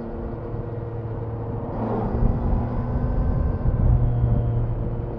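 Triumph Daytona 660's three-cylinder engine running while the bike is ridden, heard from onboard with rushing air noise. The engine note rises and grows louder about two seconds in and again near four seconds.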